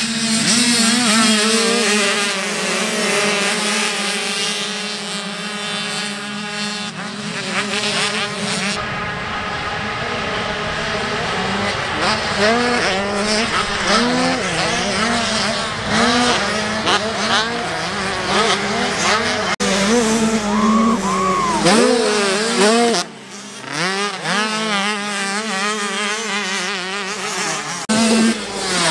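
Mini motocross bikes racing. A pack of engines runs hard off the start, then the engines rev up and fall away again and again as riders go over the jumps.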